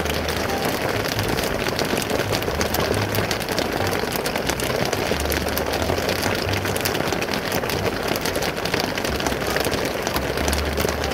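Heavy rain falling steadily: a dense hiss of countless drops hitting wet gravel and leaves.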